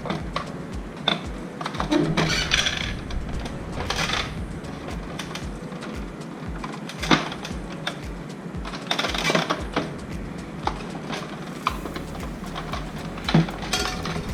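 Hard plastic parts of an Epson L360 printer being handled during disassembly: scattered clicks and taps, a few short scraping stretches, and some sharper single clicks, over a steady low hum.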